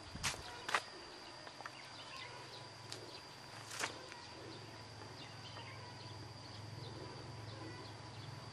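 Quiet rural outdoor ambience: a faint steady low hum and a thin steady high tone, with a few sharp clicks, two near the start and one about four seconds in.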